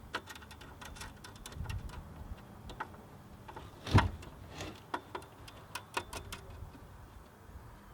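Scattered light clicks and taps of metal hardware and tools being handled while the inverter's battery cables are hooked up, with one louder knock about four seconds in.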